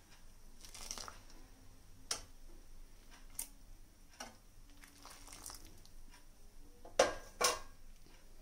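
A steel spoon stirring boiling milk in a steel pan, with scattered scrapes and clinks of metal on metal. Two louder clanks of the spoon against the pan come about seven seconds in.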